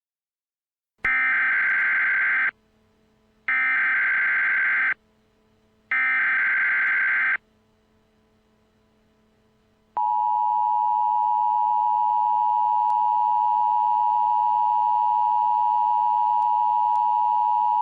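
Emergency Alert System broadcast signalling. About a second in come three loud bursts of screechy digital data, each about one and a half seconds long with a second's gap between them: the SAME header that encodes the alert. From about ten seconds in, the steady two-tone EAS attention signal (853 and 960 Hz together) sounds for about eight seconds, announcing a tornado warning message.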